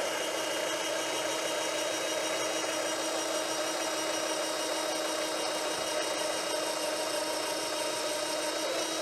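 Presto Professional SaladShooter electric slicer running steadily, its small motor whining as a potato is pushed through the cutting cone and shredded.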